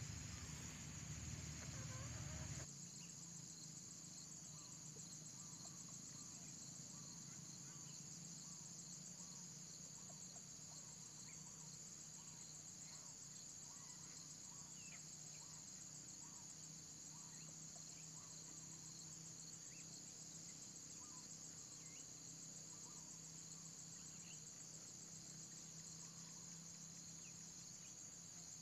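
Steady high-pitched chorus of insects, finely pulsing, with faint short chirps scattered through it. A louder low rumble in the first two and a half seconds cuts off suddenly.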